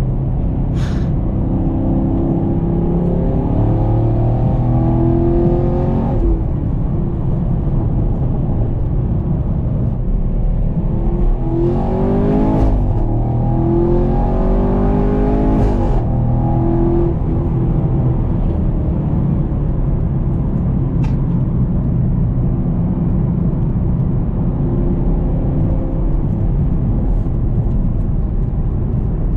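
Chevrolet Camaro SS 1LE's 6.2-litre LT1 V8 accelerating in two pulls, its pitch rising and then dropping at each gear change, about three seconds in and again around twelve to sixteen seconds in. After that it runs at a steady cruise.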